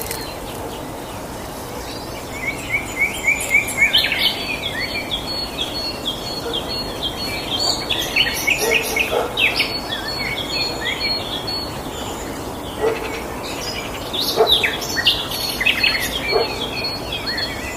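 Several small songbirds singing and chirping in quick, repeated high notes and trills over a steady background hiss. The song thins out for a couple of seconds just past the middle, then picks up again.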